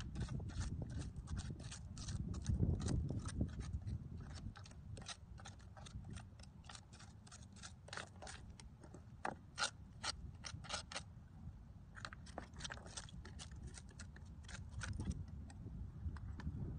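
Irregular sharp clicks and scrapes of shells and gravel as someone digs through the sandy shore by hand for clams, with wind rumbling on the microphone in the first few seconds and again near the end.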